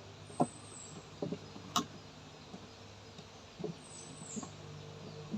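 Scattered light clicks and taps of hand wiring work, about five in all with the sharpest a little before two seconds in, as a wire is connected to a convenience outlet's terminal.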